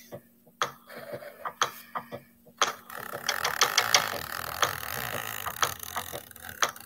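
Pen scratching on paper as a black border line is inked: scattered scrapes and clicks at first, then from about three seconds in a continuous scratching with rapid ticks.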